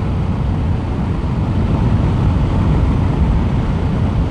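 Steady wind rush and engine drone of a sport-touring motorcycle cruising at highway speed, with wind buffeting the rider's helmet-mounted microphone.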